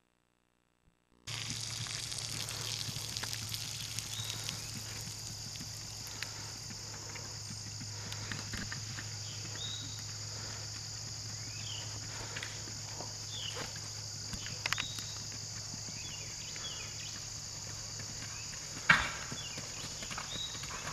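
Open-field ambience cutting in about a second in: a steady high insect drone over a low hum, with a few short bird chirps. One sharp knock about 19 seconds in.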